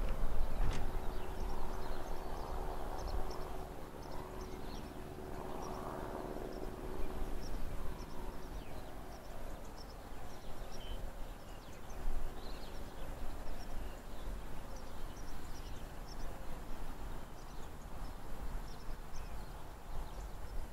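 Distant Class 66 diesel locomotive, with its two-stroke V12 engine, hauling a long train of hopper wagons: a low rumble with a steady engine drone over the first several seconds that then fades. Small birds chirp throughout.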